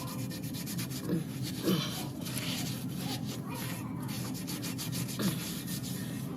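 Rapid, repeated rubbing and scraping strokes over a steady low hum.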